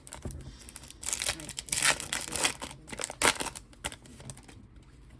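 Foil wrapper of a Yu-Gi-Oh! booster pack crinkling and tearing open in a quick run of rustling rips over about three seconds.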